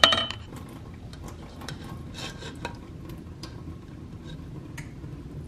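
Wooden spoon stirring and scraping ground beef in the stainless steel inner pot of an Instant Pot, with scattered light clinks and one louder knock right at the start.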